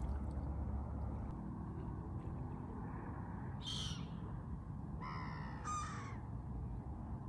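Bird calls outdoors by a lake: a short, high call about three and a half seconds in, then a longer call about five seconds in. A steady low rumble runs underneath.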